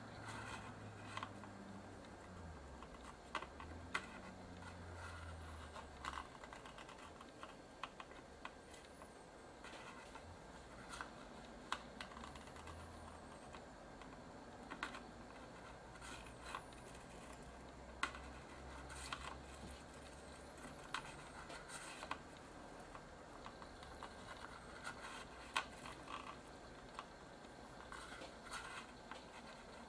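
Faint, irregular small clicks and taps, about one or two a second, from a soldering iron tip being worked along the solder-covered pins of a surface-mount IC as it is heated to lift the chip off the board.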